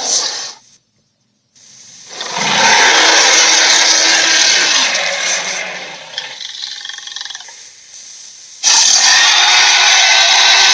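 Dragon roar sound effects. A roar cuts off just after the start. After about a second of silence comes a long loud roar that fades over several seconds, then a quieter pitched growl, and a second loud, sustained roar begins near the end.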